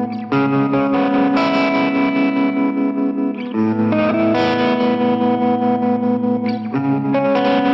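Electric guitar played through an AudioTubeWorks Tremmatic vintage tremolo pedal: held chords that change about every three seconds, their volume pulsing quickly with the tremolo.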